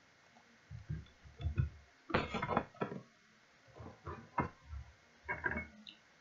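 Scattered computer keyboard keystrokes and mouse clicks on a desk, a handful of short faint clicks and soft knocks, the loudest cluster about two seconds in.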